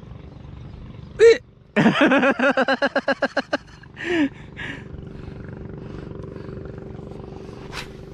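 A man laughing loudly in a quick run of about a dozen 'ha' pulses, with short shouts just before and after. A steady low engine hum runs underneath.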